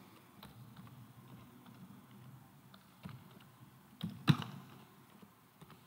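Computer keyboard being typed on, faint scattered key taps as a name is entered, with one sharper click a little after four seconds in.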